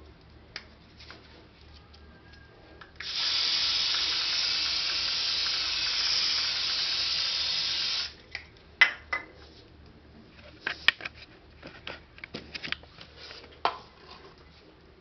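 Aerosol can of Adidas Team Force men's body spray sprayed in one continuous hiss lasting about five seconds, starting about three seconds in. It is followed by a few sharp clicks and knocks.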